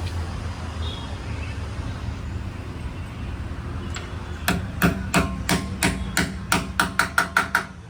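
A hammer striking metal about fifteen times, starting a little over halfway in and quickening toward the end, over a steady low hum.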